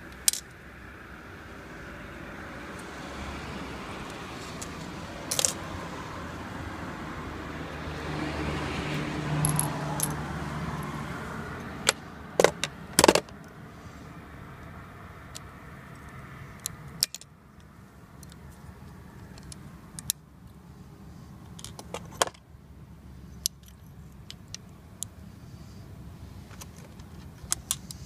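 Small metal parts and hand tools clinking and clicking against the lifting hook's clutch mechanism and an aluminium tool case during hand assembly: scattered sharp clinks, with a quick cluster about twelve to thirteen seconds in. Under the first half a passing vehicle's engine noise swells and fades.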